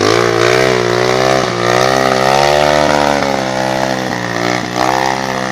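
Trail motorcycle engine revving hard and held at high revs while the bike climbs a muddy slope. Its pitch wavers up and down and dips briefly a few times.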